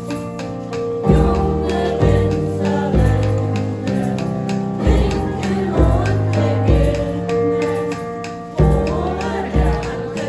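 A group of voices singing a song together over instrumental accompaniment with a bass line that steps from note to note.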